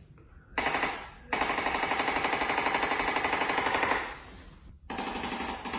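Handheld electric percussion adjusting instrument tapping rapidly and evenly in runs: a short burst, then one lasting nearly three seconds, then another starting near the end.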